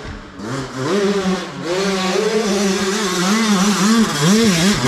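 Dirt bike engine revving, its pitch holding and then dipping and rising again several times in the last couple of seconds as the throttle is worked.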